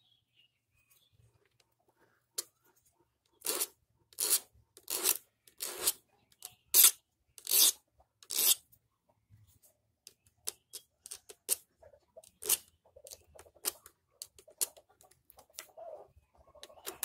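Flat steel file rasping across the tops of a chainsaw chain's teeth in repeated hand strokes, filing away the rough spots that catch. About eight heavy strokes come first, then shorter, lighter strokes follow more quickly.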